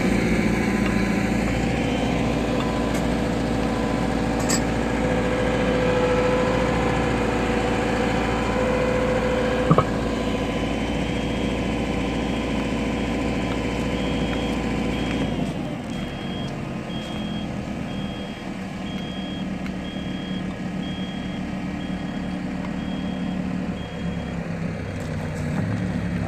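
Cat M314F excavator's diesel engine running steadily while its boom holds a retaining-wall block on a strap, with a single sharp knock near ten seconds in. From about eleven seconds in, a backup alarm beeps about once a second. A few seconds later the deep engine drone drops away, leaving a lighter running sound.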